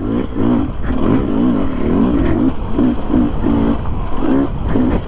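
Dirt bike engine revving in short repeated throttle bursts, its pitch rising and falling with each blip, as the bike is worked through a rut.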